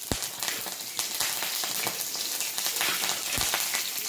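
Slit green chillies frying in hot oil in a steel kadai, together with a dry red chilli and black cumin (nigella) seeds: a steady sizzle with fine crackling and a couple of sharper clicks, the tempering (phoron) stage of the dish.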